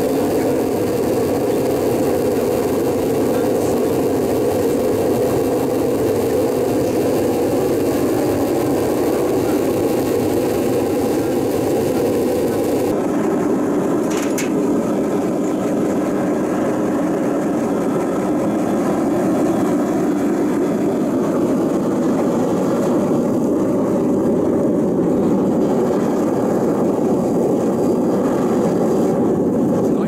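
Homemade gas-fired melting furnace running, its burner fanned by a washer-dryer blower, giving a steady rushing noise.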